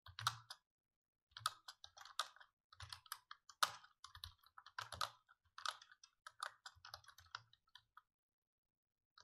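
Typing on a computer keyboard: irregular runs of quick keystrokes, with a short pause about a second in, stopping about a second before the end.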